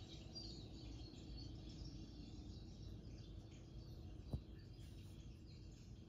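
Faint bird chirps and twittering from a bird video playing on a TV, over low room noise. A single sharp knock about four seconds in.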